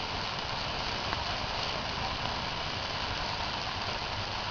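A bonfire burning a mattress, giving a steady rushing hiss with a faint crackle about a second in.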